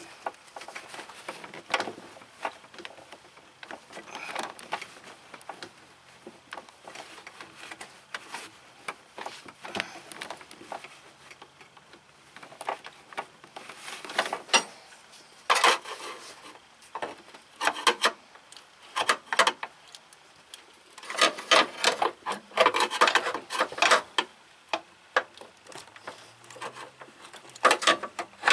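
Irregular scraping, rubbing and clicking of hand work with tools and parts, with denser stretches of scraping near the middle and again about three-quarters of the way through.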